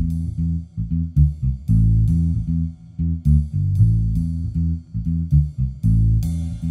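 Instrumental background music led by a plucked bass guitar line of short, low notes.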